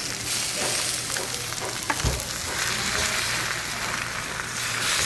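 Batter frying in oil on a hot griddle, a steady sizzle, with a few light clicks and a dull knock about two seconds in.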